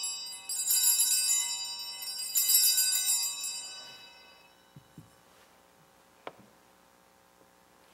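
Altar bells rung at the elevation of the chalice during the consecration, shaken twice so that a bright cluster of high tones rings out and fades away by about four seconds in. A few faint knocks follow.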